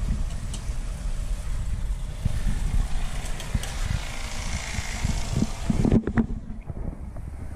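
Wind buffeting a handheld camera's microphone as it is carried, a rough rumble with hiss above it. About six seconds in the hiss cuts off and a few handling knocks follow.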